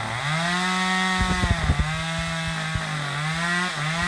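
Chainsaw running steadily, its engine pitch rising and dipping a few times with the throttle, with a few knocks about a second and a half in.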